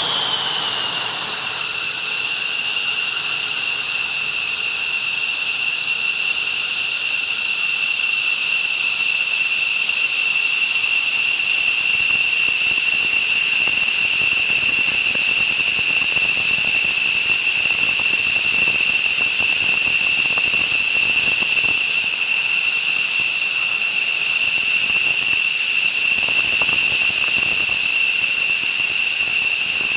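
Turbine engine running steadily: a loud, even hiss with a high, piercing whine in several pitches that settles slightly lower in the first second or two and then holds.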